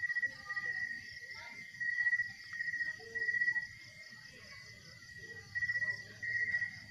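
Crickets trilling in short, repeated bursts of about half a second, with a pause of a second or so in the middle.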